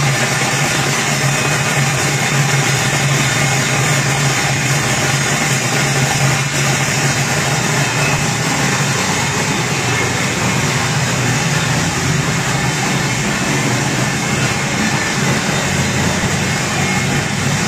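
Raisin colour sorting machine running: a steady, loud mechanical hum, a strong low drone under an even hiss.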